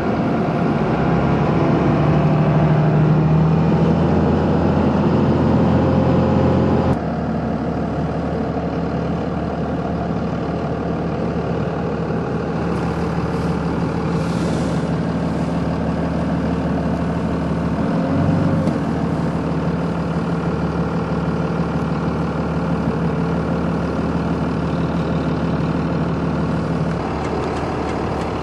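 A vehicle engine running steadily with a low, even drone. The sound changes abruptly about seven seconds in.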